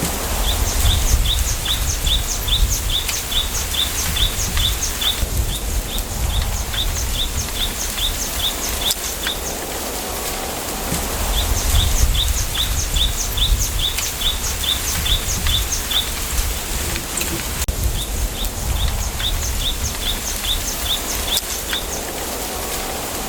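Wind through a bamboo grove, an even rustling hiss over a low rumble, while a small bird repeats a short high chirp about three times a second in three long runs.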